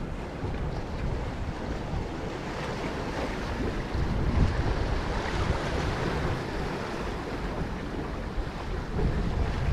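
Small sea waves washing against shoreline rocks, with wind buffeting the microphone. The wash swells about four seconds in.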